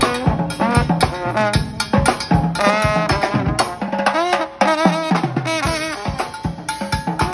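Live brass-and-drums band: a trombone plays a bouncy melody over a steady drum kit and snare beat.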